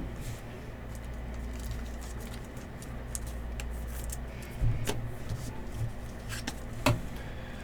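Trading cards and packs being handled: a few light clicks and taps, two of them sharper near the end, over a steady low hum.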